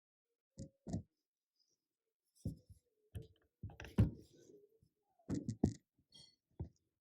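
Irregular knocks and clicks of wood and tools being handled while a small wooden door stopper is fitted, a pair about half a second in and a louder cluster near the middle.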